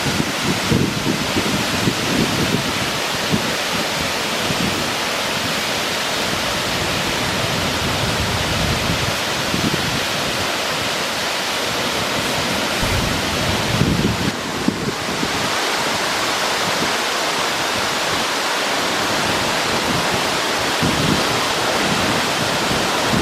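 A 63-metre straight-drop waterfall pouring off a cliff face, a loud, steady rush of falling water, with irregular low rumbles underneath.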